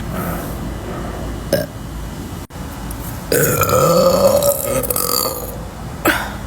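A woman's long, loud burp lasting about two seconds, starting about halfway through, its pitch sliding as it goes.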